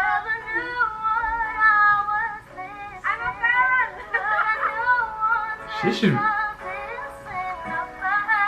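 A young girl singing a pop ballad with long, wavering held notes over soft musical accompaniment.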